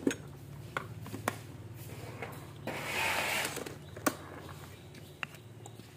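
Clicks and light knocks of a rice cooker and its inner pot being handled, with a short scraping rustle about three seconds in, over a low steady hum.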